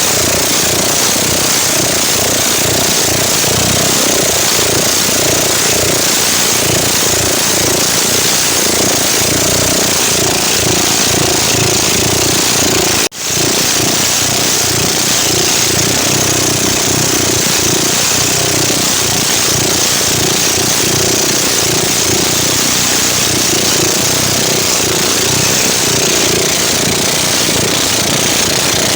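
Stock motorcycle engine running steadily under load, with a brief sharp drop-out about thirteen seconds in.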